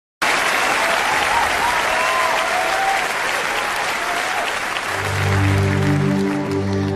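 Large audience applauding, with a low sustained musical drone coming in about five seconds in as the applause dies away.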